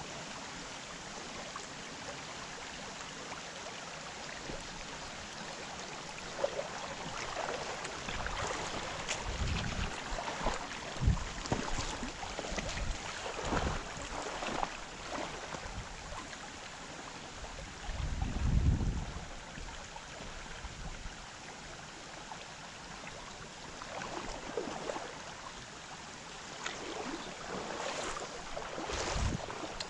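Stream water running steadily over a shallow riffle, with several low rumbles on the microphone in the middle, the strongest about two-thirds of the way through.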